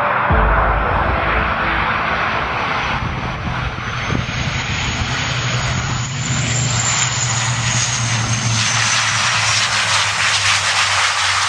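Antonov An-132D's twin Pratt & Whitney PW150A turboprop engines running close by as the aircraft lands, a steady low drone under a rushing roar. A thin high turbine whine rises to a peak about halfway through and then falls away.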